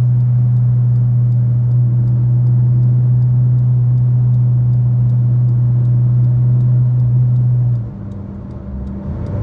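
Loud, steady low-pitched tone with overtones from a Fiat Uno Way driven in gear above 100 km/h, heard inside the cabin. It is the unexplained noise the owner calls a whistle, which stops when the clutch is pressed. The tone cuts out suddenly near the end, leaving quieter road noise, and returns just after.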